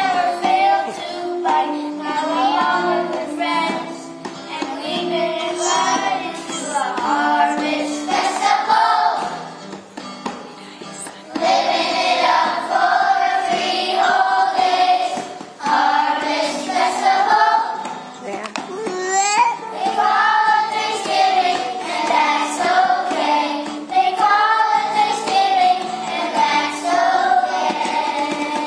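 A group of young children singing a song together in unison over a steady instrumental accompaniment.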